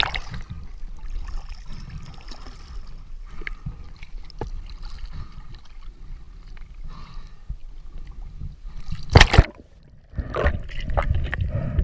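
Sea water sloshing and gurgling around an action camera at the surface, with scattered small splashes and clicks. About nine seconds in comes one loud splash, and the camera is then back underwater with churning water noise.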